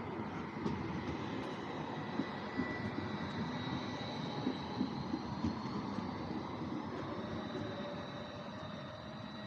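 Low-floor tram driving away along its track: a steady electric whine over a rumbling running noise, slowly fading toward the end.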